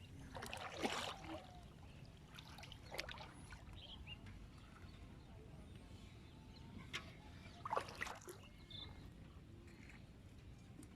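Water splashing and sloshing in a shallow marsh in a few short bursts, about a second in, near three seconds and again around seven to eight seconds, as a fishing net is worked in the water.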